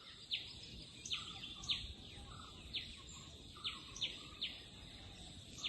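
A bird chirping over faint background hiss: short, sharp chirps that each fall quickly in pitch, about one or two a second at uneven intervals.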